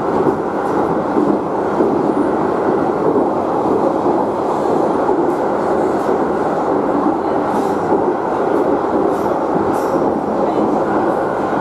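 London Underground 1996 Stock train heard from inside the carriage while running at speed: a steady, loud rumble of wheels on rail with faint clicks now and then.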